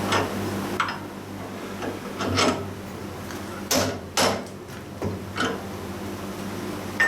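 Metal knocks and clunks of a steel drive shaft being handled and seated in a milling machine vise, about half a dozen irregular hits, two of the loudest close together about four seconds in, over a steady low hum.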